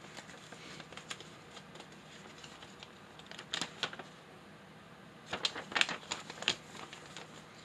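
Paper instruction sheet being handled: scattered light crinkles and clicks, busiest about halfway through and again in the last third.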